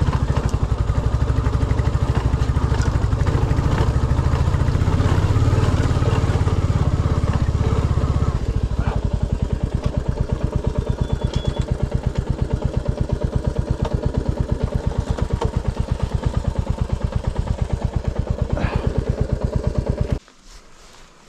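Royal Enfield Classic 350's single-cylinder engine running with a steady, fast firing beat. It gets lighter about 8 seconds in and stops abruptly about 20 seconds in. The rider says the bike has overheated a little.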